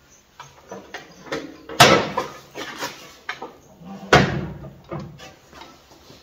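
Knocks and clunks of a mitre saw being handled and set down on an aluminium tread-plate table top. There are two heavy knocks, about two and four seconds in, with lighter knocks in between.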